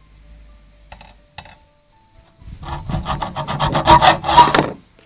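Hacksaw cutting into a copper pipe held in a screw clamp. It starts with two short strokes, then about two seconds of fast, loud sawing that stops shortly before the end.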